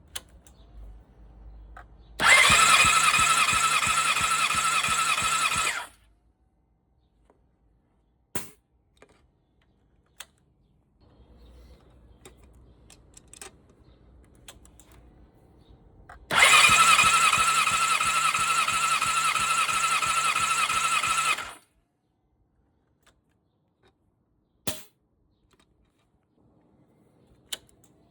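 Honda CBR600RR's inline-four engine being cranked over on the starter motor twice, about four and five seconds each, a steady whine with fast even pulsing and no firing: cranking for a compression test. A few short clicks sound in the pauses between.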